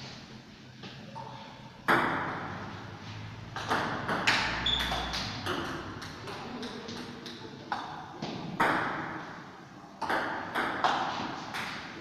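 Table tennis ball clicking sharply off paddles and the table, with irregular hits through a rally and a short ring after each.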